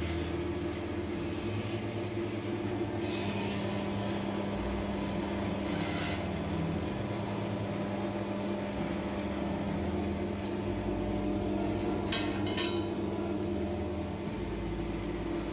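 Motor-driven screw oil expeller running under load, pressing seeds into cake with a steady mechanical hum and grinding. A few short clicks near the end.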